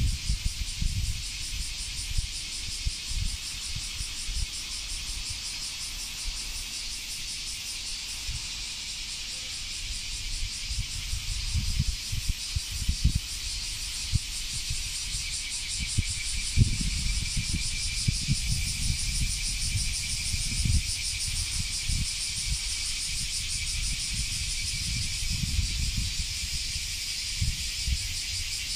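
Cicadas singing in a dense, steady chorus: a high buzz with a fine, rapid pulse. Irregular low rumbling comes and goes underneath.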